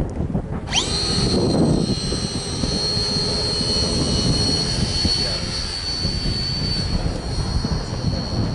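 Radio-controlled model airplane's electric motor spinning up to full throttle with a sharp rising whine less than a second in, then holding a steady high whine as the hand-launched plane climbs away. Wind buffets the microphone throughout.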